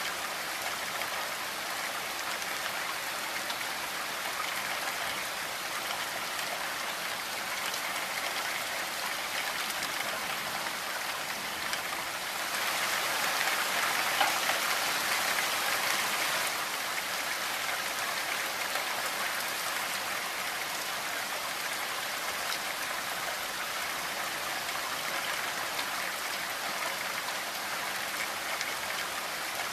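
Steady rain falling on a window and roof, an even hiss of many drops. It swells louder for a few seconds a little before halfway through, then settles back.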